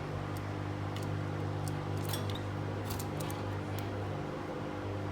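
A steady low mechanical hum, with light sharp clicks scattered through the first few seconds. No bird calls.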